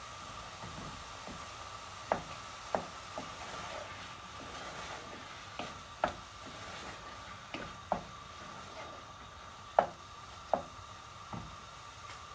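Wooden spoon stirring grated pumpkin and melting butter in a non-stick saucepan, knocking against the pan about ten times at irregular intervals, over a faint steady sizzle.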